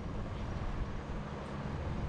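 Wind buffeting the microphone: a steady low rumble that rises and falls unevenly.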